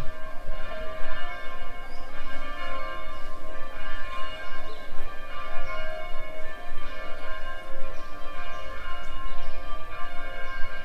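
Church bells ringing continuously, many strokes overlapping into one sustained peal.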